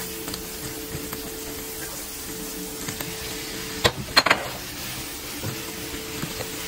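Onions frying and sizzling in a nonstick frying pan as they are stirred with a silicone spatula, over a steady hum. About four seconds in, a brief loud clatter of knocks as sliced bell peppers go into the pan, then sizzling and stirring go on.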